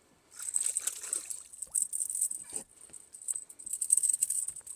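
Hooked smallmouth bass splashing and thrashing at the surface as it is brought in, with quick, irregular rattling and clicking.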